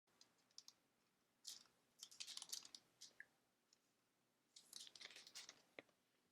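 Faint rustling and light clicks of trading cards being handled and slid off one another, in a few short spells.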